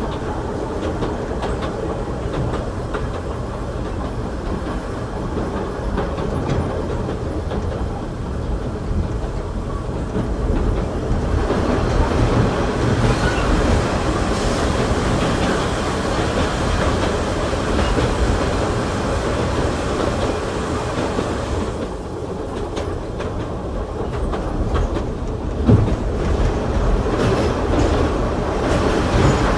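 Inside a passenger coach of the Oigawa Railway Ikawa Line running, with wheels clacking over rail joints under a steady rumble. The noise grows louder and brighter about a third of the way in and eases again around two-thirds through. There is one sharp knock near the end.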